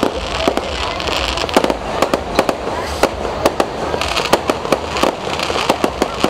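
Aerial fireworks going off in rapid, irregular bangs and pops, several a second, with stretches of hissing crackle between them.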